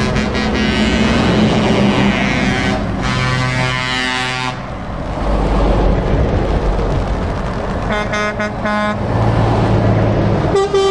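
Air horns of passing lorries sounding over the rumble of their diesel engines: a long multi-tone blast for the first four seconds or so, then two short blasts about eight seconds in.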